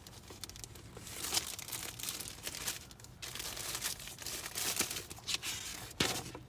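Handling of the plastic cabin air filter cover and filter: irregular rustling and crinkling with a few light plastic clicks.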